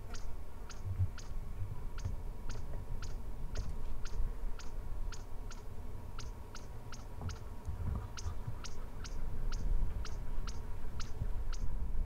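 A steady series of sharp, high clicks, about two to three a second, repeating evenly throughout, over a low rumble that comes and goes.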